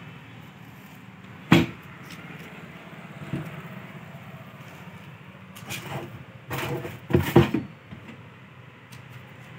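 Melamine-board cabinet doors and glass panes being handled: a sharp knock about one and a half seconds in, then a cluster of knocks and rattles a few seconds later. A steady hum of road traffic runs underneath.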